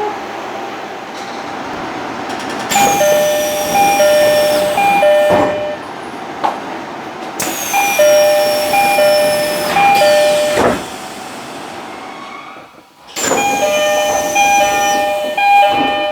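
Tokyo Metro 17000 series train doors working three times over. Each time a high whine falls in pitch, the two-note door chime (a higher note, then a lower one) plays three times while the doors slide, and the doors stop with a thud.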